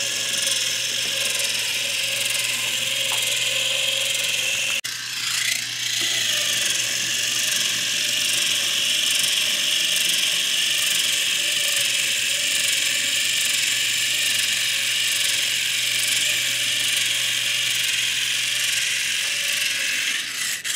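Battery-powered Thomas Wooden Railway Lady engine with all-wheel drive: its small electric motor and gear train whir steadily as it climbs a plastic track incline. The sound dips briefly about five seconds in, then runs on.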